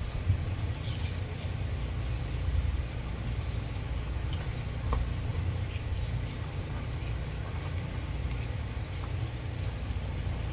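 Low, uneven rumbling noise with a few faint clicks.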